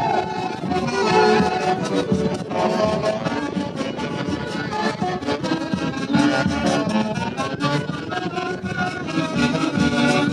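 Peruvian orquesta típica of saxophones and strings playing a lively traditional Andean dance tune live, the melody carried by several reed instruments together.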